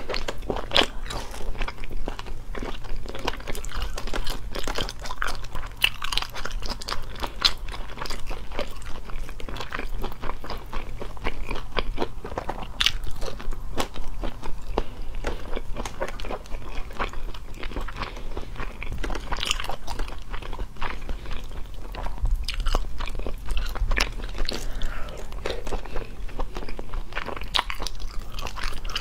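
Close-miked eating of sea snails in spicy sauce: biting and chewing with wet, crackly crunches and clicks, going on without pause.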